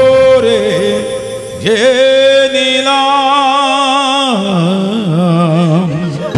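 Slow song music: three long held melodic notes, each lower than the last, the last two with a wide vibrato.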